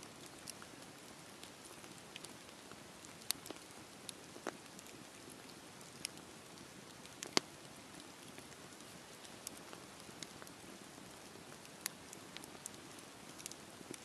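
Wood campfire burning: a steady hiss from the flames, with sharp pops and crackles from the burning logs at irregular intervals, the loudest about seven seconds in.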